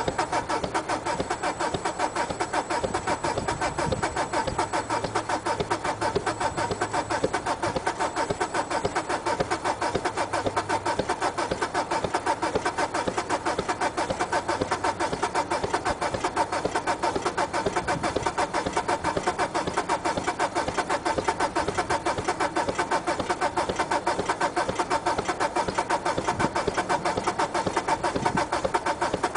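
Peugeot saloon's diesel engine idling steadily with an even, rapid clatter just after a cold start, its exhaust blowing smoke.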